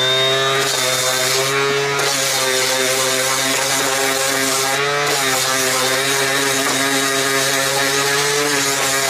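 Cordless random orbital sander starting up and running loud and steady while sanding a wooden frame, its motor pitch dipping briefly twice as it is pressed against the wood.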